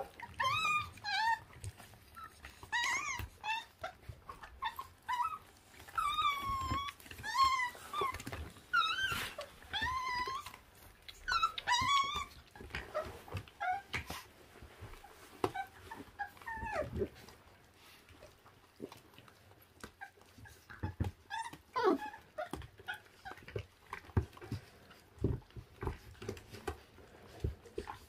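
Newborn-litter puppies, about 26 days old, whining in many short, high, wavering cries as they tug and tear at raw meat, with clicks and small knocks of chewing. The cries thin out about halfway, leaving mostly chewing.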